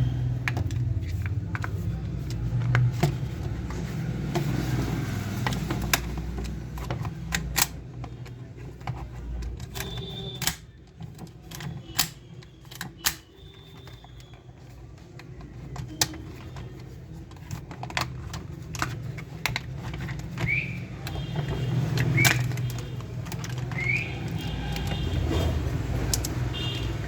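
Scattered sharp clicks and light knocks of a plastic toy gun's parts being handled, over a low rumble of traffic; three short rising chirps come in the second half.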